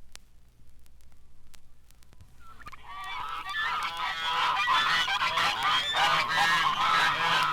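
A large flock of birds calling, many short overlapping calls that fade in about two and a half seconds in and grow steadily louder. Before the calls come in, only scattered record-surface clicks are heard.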